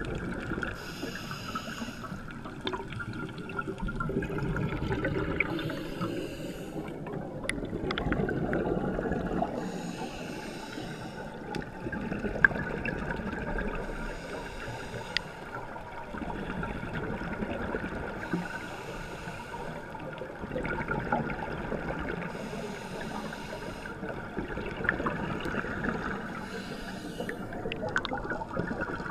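Scuba regulator breathing heard underwater: the diver exhales in bursts of bubbles about every four seconds, each bubbling for a second or two, over a steady low rumble of water against the camera housing.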